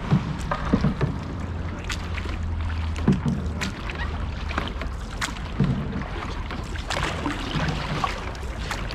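Canoe paddles dipping and splashing in river water as a crew paddles, with irregular strokes and knocks against the hull over a steady low rumble.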